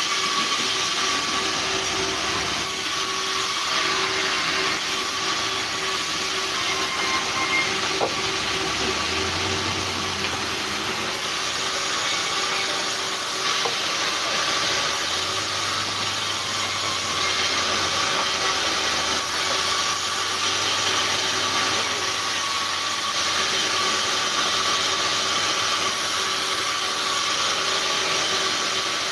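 Large vertical band saw running and cutting through timber boards: a steady hiss of the blade in the wood over the constant hum of the machine.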